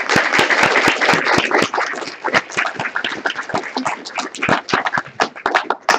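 Audience applauding: dense clapping that is loudest at first and thins out toward the end.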